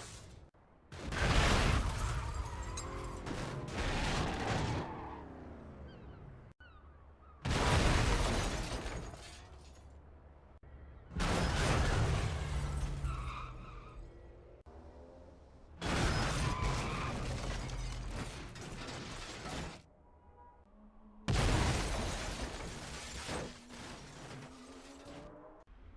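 A series of dramatic car crash and explosion sound effects, five in all, each a sudden loud impact that dies away over a few seconds in a ringing, rattling tail.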